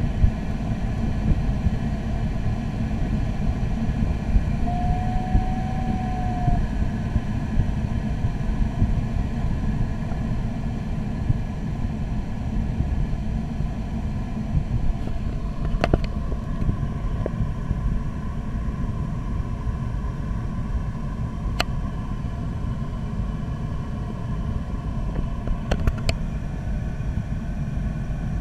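Steady low rumbling airflow noise inside a glider cockpit during soaring flight, with no engine. A brief tone sounds about five seconds in, and a few sharp crackles, a fault in the recording, come in the second half.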